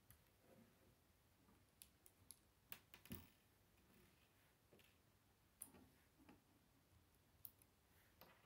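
Faint, scattered clicks and taps of plastic K'nex construction pieces being handled and pressed together, a cluster of them two to three seconds in and a few more near the end.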